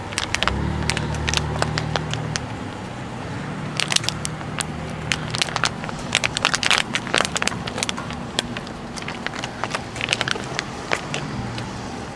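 Cars running along a road, heard as a low steady engine hum, with irregular crackling clicks and crunches close to the microphone; the clicks are loudest and thickest in the middle of the stretch.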